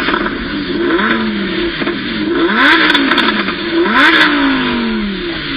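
A ringtone made from a car engine revving again and again, its pitch climbing and then falling back every second or so.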